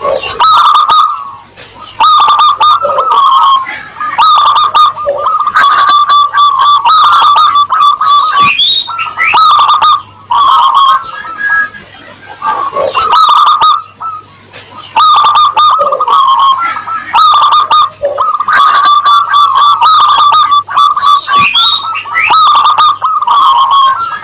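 Zebra dove (perkutut) singing its rippling cooing song over and over, in phrases of a few seconds with short pauses between them.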